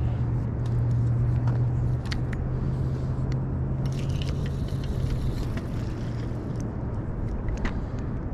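Steady low hum and rumble that fades after about five seconds, with a few light clicks and a brief hiss about four seconds in as a carp rod is cast out and line runs off the reel.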